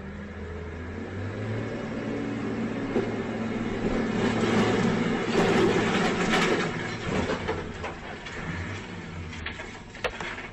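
Diesel engine of a semi-truck reversing nearby, growing louder to a peak midway and then easing off, with one sharp knock near the end.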